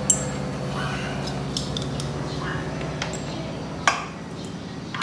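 Metal tools and small metal parts clinking and tapping while being handled, a few sharp clicks with a louder one near the end, over a steady low hum.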